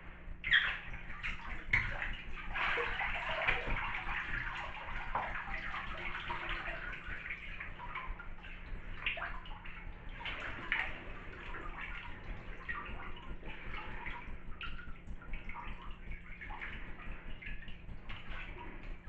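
Bathwater sloshing and splashing in a filled tub as a person moves about in it fully clothed, with dripping as the boots are lifted out of the water. The movement is busiest a couple of seconds in, then continues as lighter splashes.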